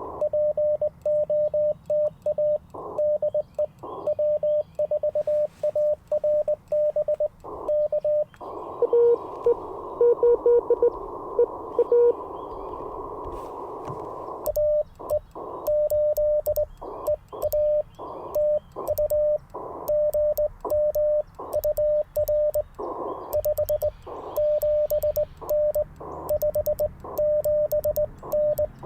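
Morse code (CW) sidetone from an Icom IC-705 transceiver: a steady tone keyed on and off in dits and dahs. About eight seconds in the sending stops for some six seconds of band hiss from the receiver, with a faint, lower-pitched Morse signal in it, before the sending starts again.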